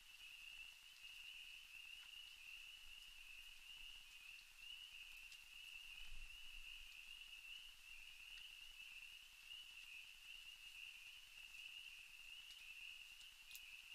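Faint, steady high-pitched trilling of night insects, running unbroken. A soft low bump about six seconds in.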